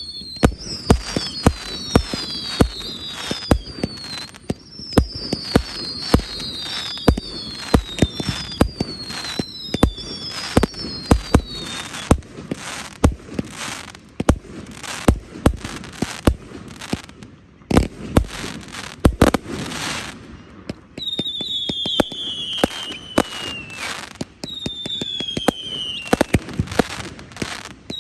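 Fireworks display: a dense run of sharp bangs from bursting shells, with high whistles that fall in pitch, often several at once, sounding through much of it.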